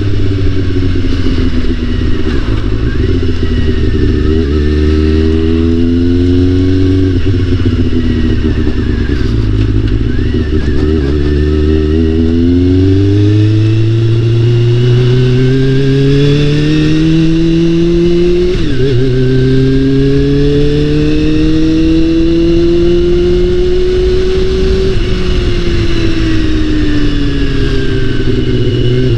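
Honda CBR400RR (NC29) inline-four engine running under way. Its pitch climbs steadily as the bike accelerates and drops suddenly at each gear change, several times.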